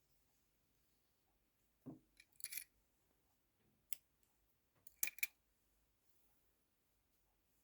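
Scissors snipping: a crisp cut about two seconds in and a quick double snip about five seconds in, with a soft knock just before the first and a single click between them.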